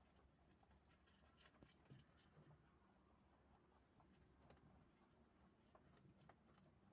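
Faint, irregular crunching clicks of rabbits chewing and nibbling their food.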